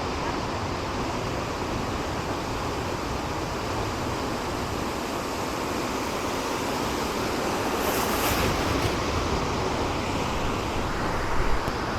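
Waterfall rushing steadily, an even hiss of falling water, with a brief higher, louder hiss about eight seconds in.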